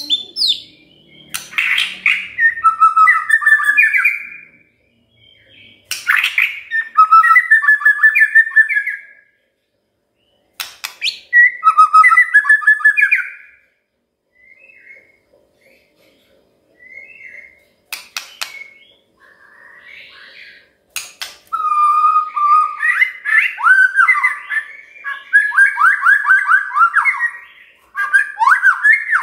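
White-rumped shama singing: loud, varied phrases of fast whistled and rattling notes, several opening with a sharp click-like note, coming in bursts with short pauses between them. A few soft scattered notes follow midway, then a long, near-continuous run of rapid notes in the last third.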